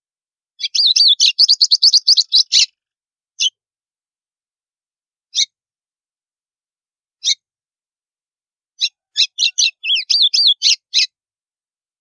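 White-throated seedeater (golinha) singing its 'estalo' song type. A fast run of high notes lasting about two seconds is followed by three single notes about two seconds apart, then a second fast run of about two seconds.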